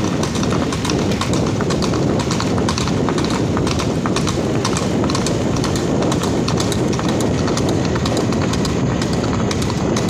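A Marwari horse's hooves clip-clopping on a road in a quick, regular beat, over a steady low rumble.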